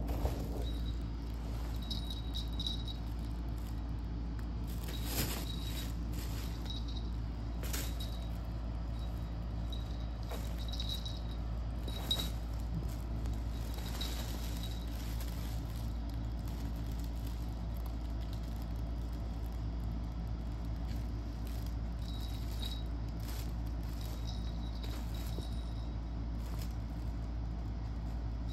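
A cat playing in a fabric pop-up play tunnel: scattered rustles and scrapes of the tunnel fabric and a dangled string toy, a few of them sharper, with faint light jingling now and then, over a steady low hum.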